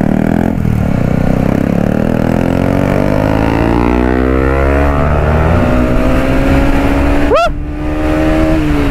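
KTM Duke 250's single-cylinder engine pulling the motorcycle along, its pitch rising slowly as it gains speed. About seven and a half seconds in there is a brief, sharp upward sweep and a short dip in loudness, then the engine note holds steady and falls off near the end.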